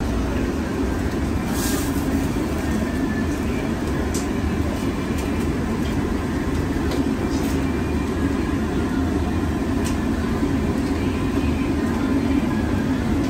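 Steady low roar of shop and street background noise, with a few faint light clicks.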